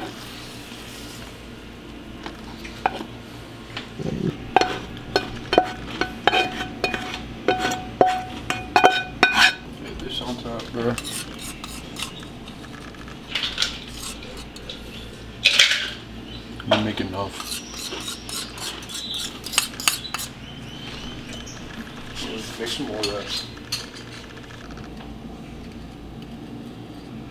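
A metal spoon clinking and scraping against a skillet and a plate as cooked apple pieces are served out, with scattered knocks, a few short ringing clinks and a steady low hum underneath.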